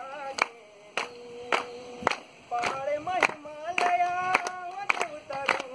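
A crowd clapping in time, just under two claps a second, to an unaccompanied Kumaoni folk song sung with long held notes.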